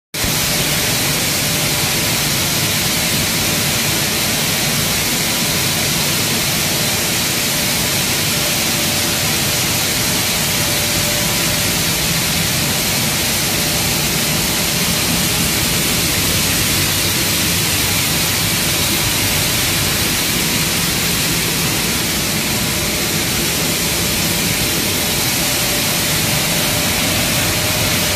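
Maize flour milling machines running steadily, making a loud, even rushing noise with a faint steady whine in it.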